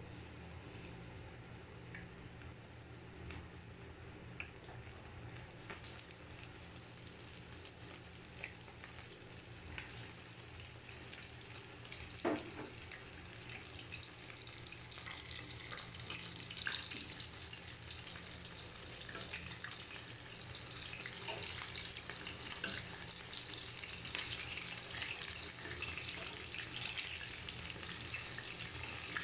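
Flour-coated chicken wings deep-frying in hot oil in a pan, a steady sizzle with small crackles that grows louder and denser as more wings go in. One sharp click sounds about twelve seconds in.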